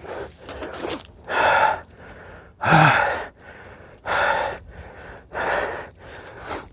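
A man panting hard, winded from a steep uphill bike climb: about five loud, gasping breaths, roughly one every second and a bit.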